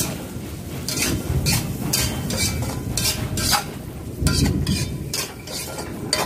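Metal spatula stirring and scraping sliced onion and chillies around a wok as they fry: quick scrapes and clinks about twice a second, over a low rumble.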